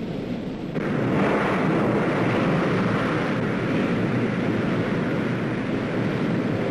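Ocean surf and blowholes spouting sea spray through a rock shelf: a steady rushing of water that grows suddenly louder about a second in.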